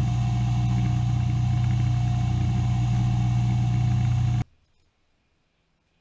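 Steady low machine drone, like a motor running, that cuts off suddenly about four and a half seconds in.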